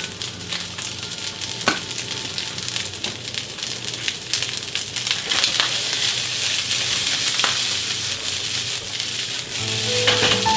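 Food sizzling in a frying pan as home-style fried rice is stir-fried, a steady hiss with a few sharp clicks, a little louder in the second half.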